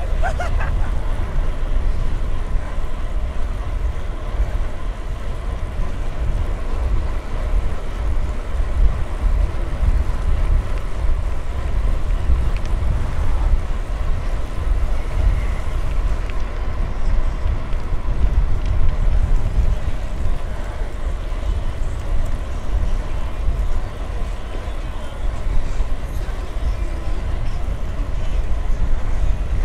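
Wind buffeting the microphone of a moving bicycle: a steady low rumble.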